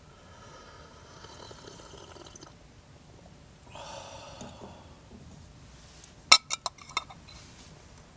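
Liquid pouring into a vessel in two short goes, then about four sharp clinks, like a glass or metal utensil knocking, about six seconds in.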